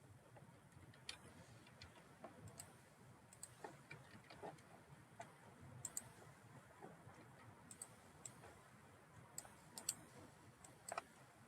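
Computer mouse clicking in a quiet room: about a dozen short, sharp clicks at irregular intervals, some in quick pairs like double-clicks, over a low hiss.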